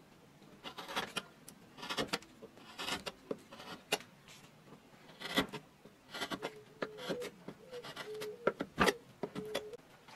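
Hand-pushed U-shaped gouge cutting into wood: a series of short slicing, scraping strokes about once a second as shavings come off, with brief squeaks from the blade in the later strokes.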